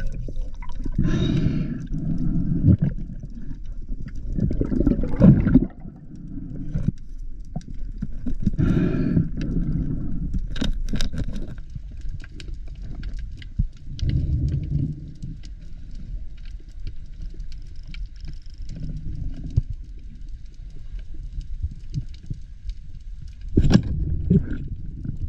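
Muffled water movement and bubbling around an underwater camera carried by a swimming spearfisher, swelling every few seconds, with scattered small clicks.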